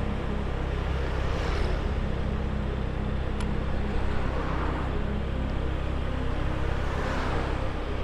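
Riding a motor scooter through town traffic: steady engine and wind rumble, with other vehicles passing and swelling louder about a second and a half in and again near the end.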